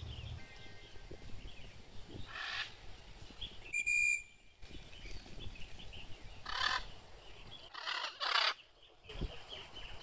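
Blue-and-gold macaw giving loud, harsh squawks: one about two and a half seconds in, another near seven seconds, then two close together near eight seconds. Small birds chirp faintly throughout.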